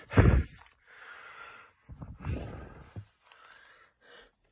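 A man breathing heavily, with a short knock about three seconds in.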